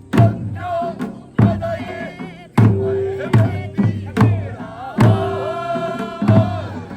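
Korean pungmul folk percussion band playing: heavy drum strikes about once a second, some followed by a ringing gong tone, with a wavering melodic line above.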